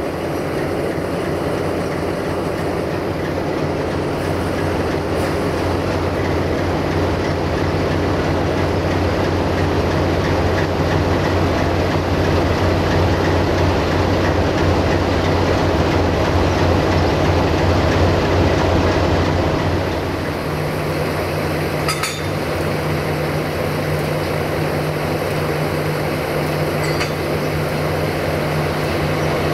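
LDH diesel-hydraulic shunting locomotive's engine running steadily. About two-thirds of the way through, its note changes. Near that point there is a single sharp click.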